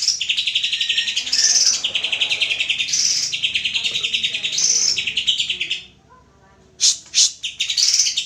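Green leafbird (cucak ijo) song: a fast, chattering run of rapid notes with higher whistled phrases mixed in. The song breaks off for a moment about six seconds in, then starts again.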